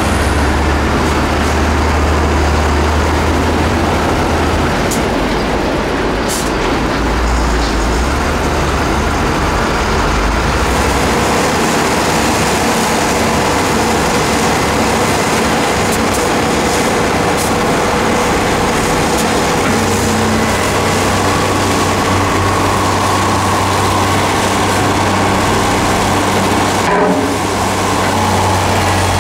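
Heavy diesel engines of a Hyundai Robex 2900LC-3 crawler excavator and a loaded dump truck running steadily while the excavator loads soil. A deep low drone fades about ten seconds in and comes back in the second half.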